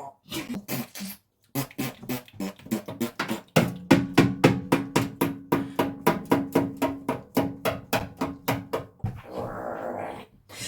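Congo African grey parrot making a fast run of popping, fart-like noises, about four or five a second, ending in a short rasping sound.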